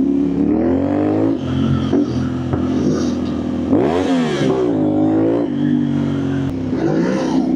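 Motorcycle engine accelerating hard, its pitch climbing and dropping back several times as it shifts up through the gears, with a sharp rev rising and falling about four seconds in.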